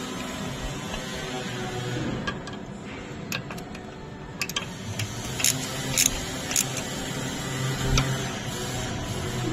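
Hand ratchet turning a bolt on the front differential's input cover: a string of sharp, irregular metal clicks over a steady background hum.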